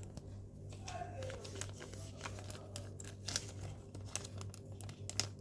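Rustling and crinkling of toy packaging being handled and opened, with many small irregular clicks and taps.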